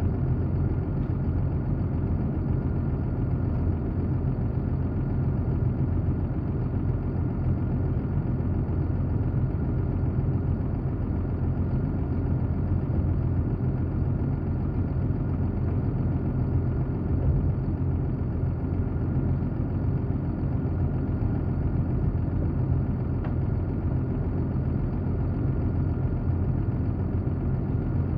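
Heavy diesel engine idling steadily, a low, even drone that neither revs up nor drops.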